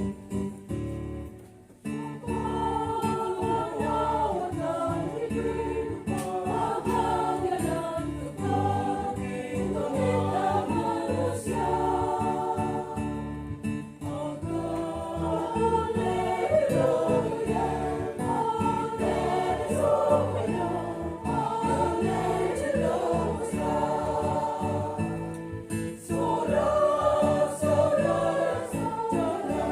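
Church choir singing a hymn in parts, accompanied by guitar; the singing begins about two seconds in, after a short pause.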